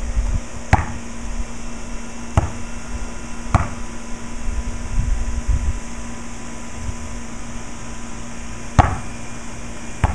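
Basketball thuds on an outdoor court: four sharp, separate knocks of the ball, spread unevenly, the loudest near the end. Under them are wind rumble on the microphone and a steady low hum.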